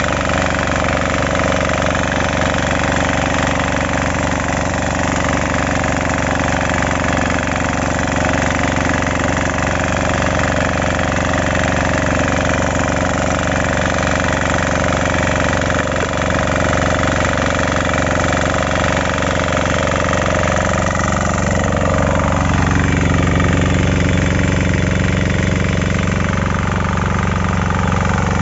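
Engine of a Kisan Kraft 6 HP inter cultivator running steadily under load while it ploughs, with its pitch rising briefly about three-quarters of the way through.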